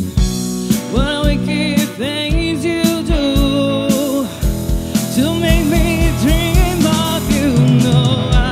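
A live band playing a song: a woman singing, holding wavering notes, over electric guitar, electric bass and a drum kit with a steady kick-drum beat.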